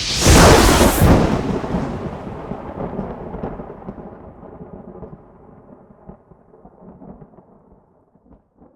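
A thunderclap: a sudden sharp crack that rolls into a long low rumble, fading away over about eight seconds with a few late crackles.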